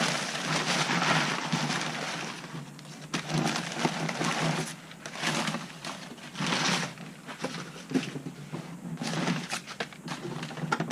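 A cardboard parcel being cut open with a knife and unpacked: uneven scraping, tearing and rustling of cardboard and packing, with a few sharp clicks.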